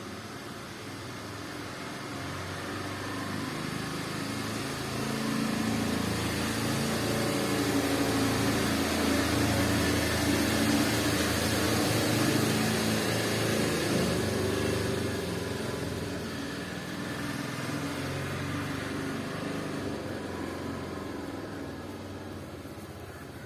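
A small engine running, growing louder toward the middle and then fading away.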